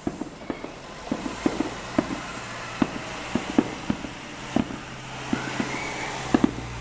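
A fireworks display: a rapid, irregular string of distant bangs and crackling pops from a run of shells fired in quick succession. A steady low hum, like an engine running, sits underneath from about a second in.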